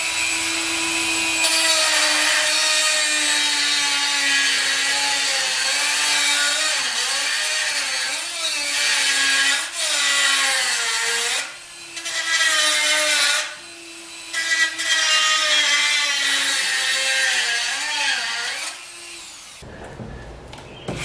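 Handheld power grinder with an abrasive cut-off wheel cutting through metal. The motor whine sags in pitch as the wheel bites and recovers as it eases off. It pauses twice in the second half and stops shortly before the end.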